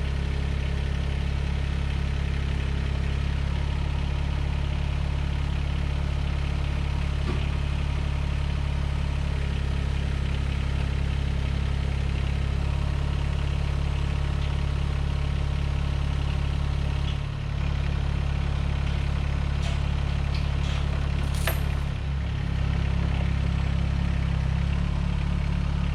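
Mahindra eMax 20S compact tractor's three-cylinder diesel engine running steadily, with two brief dips in its note about 17 and 22 seconds in and a short click near 21 seconds.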